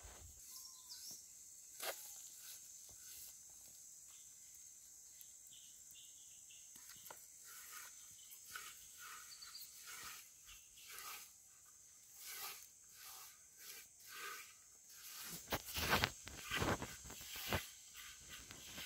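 A hand rubbing and crumbling damp finger millet flour in a metal bowl: soft, scratchy rustles and scrapes against the bowl, sparse at first and coming thicker and louder in the last few seconds.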